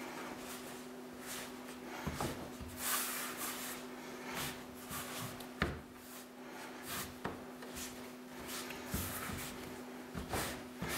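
Hands kneading crumbly shortcrust dough on a wooden worktop: soft, irregular rubbing and pressing as the butter-and-flour crumbs are worked together into a ball. A couple of sharp clicks come about halfway through, and a steady low hum runs underneath.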